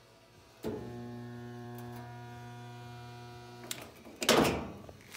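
Portable resistance spot welder humming steadily for about three seconds as its tongs fuse the steel quarter panel to the unibody: a fusion weld with no wire or gas. A loud clunk follows about a second after the hum stops.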